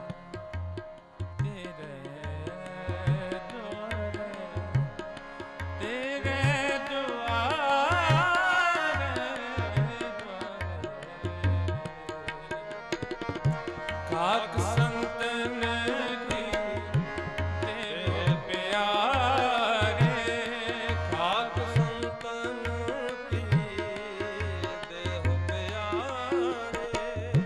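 Sikh kirtan: a man sings long, ornamented vocal runs over sustained harmonium chords, with tabla keeping a steady beat throughout.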